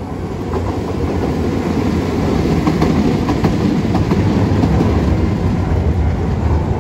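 Hiroshima Electric Railway 3800-series articulated tram passing close by, its running rumble building to a peak midway and then easing as it moves off, with its wheels clicking over the rail joints.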